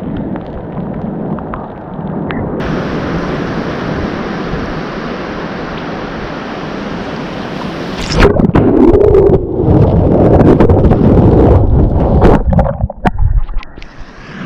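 Wind on the microphone over the steady wash of surf. About eight seconds in it turns much louder and rougher, pushing to distortion for several seconds, then dies down shortly before the end.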